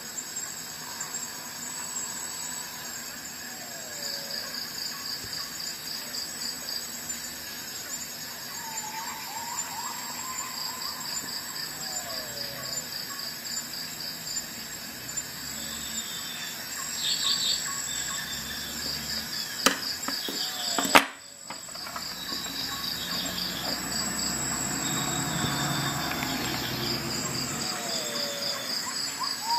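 Crickets chirping in high, rapidly pulsed trills that repeat over and over, with fainter lower calls sliding in pitch. Two sharp clicks come about twenty seconds in.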